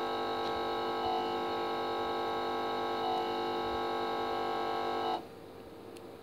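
A steady drone of several held tones sounding together, like sustained background music, which cuts off abruptly about five seconds in; a faint click follows near the end.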